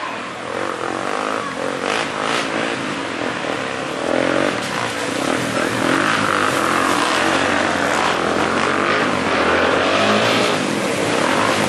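Enduro dirt-bike engines revving up and down as the bikes ride through a shallow stream, with water splashing. The sound grows louder about four seconds in as the bikes come closer.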